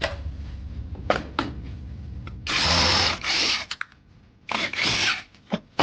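Handheld power tool run in two bursts of about a second each, undoing the bolts of a scooter's rear gear case, with a few sharp metal clicks before them.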